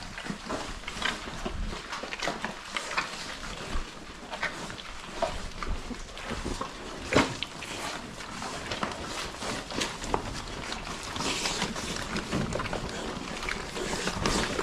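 Pigs grunting and moving about in their pen, with many short irregular clicks and knocks.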